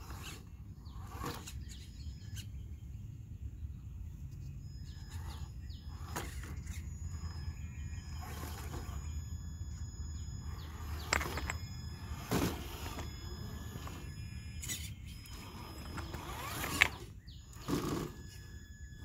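Traxxas TRX-4 Bronco RC crawler working over rocks: its electric motor and gear drive run steadily, with a series of sharp knocks and clacks of tyres and chassis against the stones, the loudest near the end.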